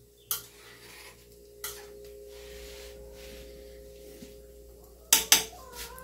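Metal pots and cooking utensils knocking on a stove: a few light clinks, then two loud metal clanks close together about five seconds in, over a faint steady hum.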